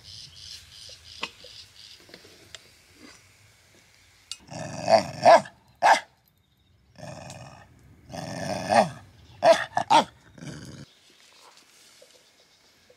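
A dog vocalising in two runs of pulsing, pitch-bending noises, the first about four seconds in and the second from about seven to eleven seconds in.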